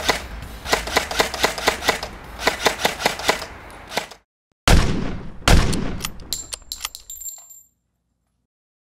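Rapid full-auto firing of an S&T Type 64 airsoft electric gun, a quick uneven run of sharp cracks that stops about three and a half seconds in. After a short silence come two loud bangs under a second apart, followed by a few clicks and short metallic pings that die away.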